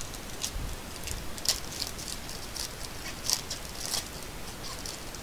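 Foil wrapper of a trading-card pack crinkling as it is opened by hand: a run of sharp crackles, loudest about a second and a half in and again around three and four seconds in.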